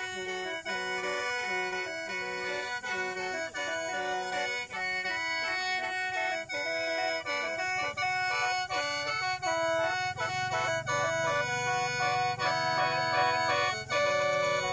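Lao khaen, the bamboo free-reed mouth organ, playing a lively melody of several notes at once over a held drone, the notes pulsing in a quick steady rhythm.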